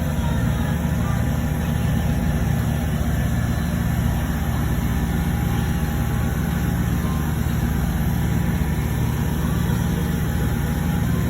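A steady low mechanical hum, like an engine or machine idling, running unchanged throughout.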